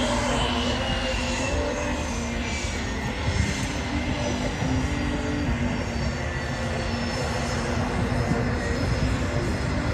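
Saab JAS 39 Gripen's single jet engine running at low power as the fighter taxis along the runway: a steady jet whine with high tones over a low rumble, the high whine sliding slightly lower in the first couple of seconds.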